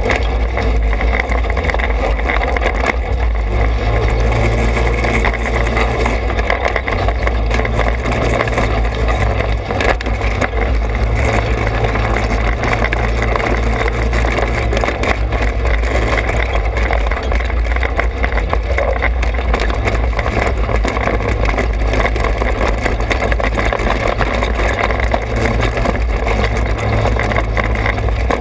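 Trailmaster 200 XRX dirt bike's single-cylinder four-stroke engine running as it is ridden, the pitch lifting and easing a few times with the throttle. Scattered clicks and knocks from the bike going over the rough dirt trail run through it.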